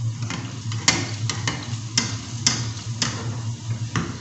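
Chicken kachoris deep-frying in hot oil, giving off irregular crackles and pops, several a second, over a steady low hum.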